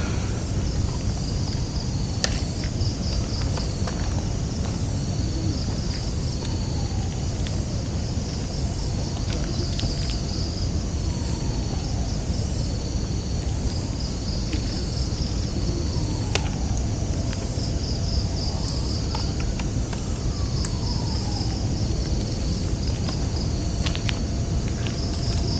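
Crickets or other night insects chirping in repeated high, pulsing trains over a steady low rumble, with a few faint falling glides now and then.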